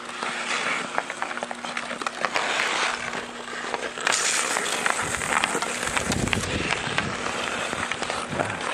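Ice hockey skates scraping and hissing on outdoor ice, with repeated sharp clacks of sticks hitting the puck and the ice during a pickup game.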